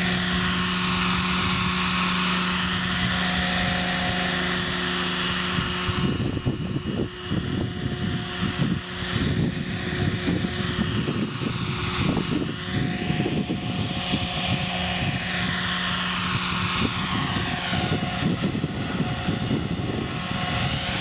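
Electric HobbyKing 500GT RC helicopter (a T-Rex 500 clone) running, its motor whining and main rotor whirring steadily at first. About six seconds in the sound turns uneven and wavering while it hovers low over the ground.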